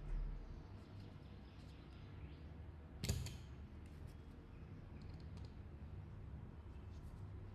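Light clicks and ticks of small tools and screws being handled while a smartphone is taken apart, with one sharper click about three seconds in.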